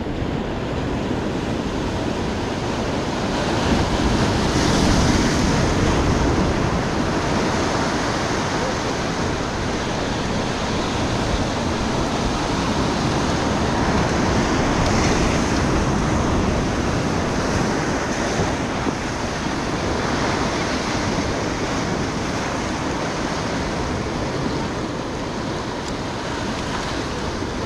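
Ocean surf breaking and washing over rocky ledges: a continuous rush of white water that swells louder a few times as waves come in, most clearly about five seconds in.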